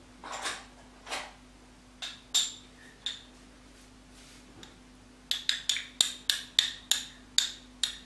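A spoon clinking against dishware as mustard is spooned out: a few separate clinks, then a quick run of about ten taps, roughly four a second, starting about five seconds in.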